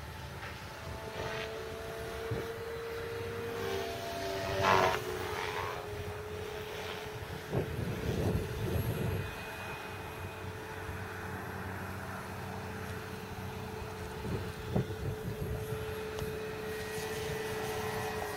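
Brushless electric motor and propeller of a Multiplex FunCub RC plane in flight, a steady whine that dips slightly in pitch about four seconds in. Louder bursts come about five, eight and fifteen seconds in.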